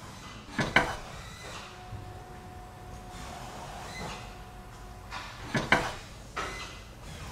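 Two sharp double knocks, one about a second in and one near six seconds, with faint steady tones in between.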